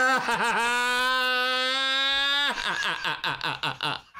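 A drawn-out scream held steady for about two seconds after a few wavering starts, followed by several shorter wavering cries. It sounds like a screaming bald eagle.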